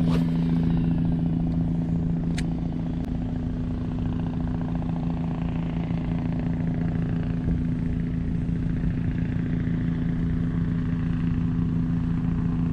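Helicopter flying close by: a steady, fast rotor chop over a steady low hum.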